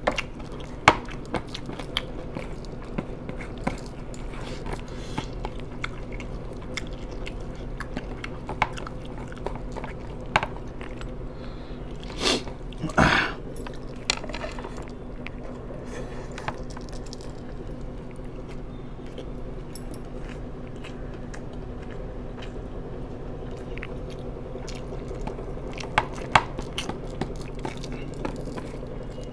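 Close-up mouth sounds of someone eating: chewing and biting with scattered crunches and sharp clicks, over a steady low hum. About twelve seconds in comes a louder, longer rustling noise.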